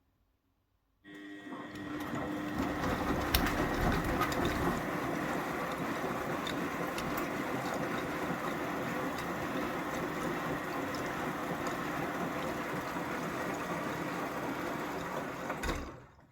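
Beko washing machine running in its rinse cycle: a steady mechanical run that starts suddenly about a second in and stops shortly before the end.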